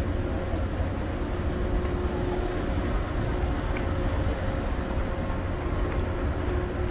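Evergreen A-class container ship Ever Ace passing close under way: a deep, steady rumble from its engine and funnel exhaust, with a steady hum above it.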